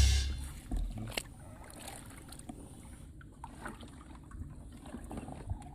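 Rock music fading out, then faint trickling water with scattered small clicks.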